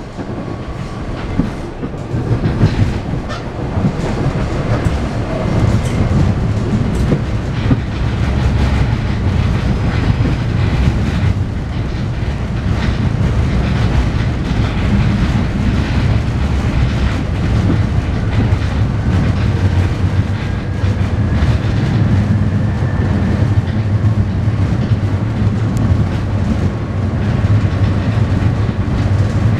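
PATCO rapid-transit train running on the track, heard from inside the car: a steady low rumble of wheels on rail with clickety-clack over the rail joints, getting louder over the first few seconds. A faint whine comes and goes.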